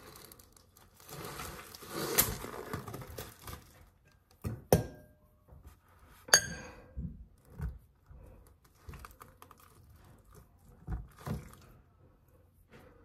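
Plastic packaging on a pack of raw chicken thighs being torn and crinkled open, with two sharp knocks and a few softer thuds.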